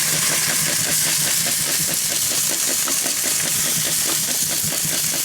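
Burst aerosol can of spray butter burning inside a microwave oven: a loud, steady hiss of escaping propellant with rapid crackling and sputtering from the fire.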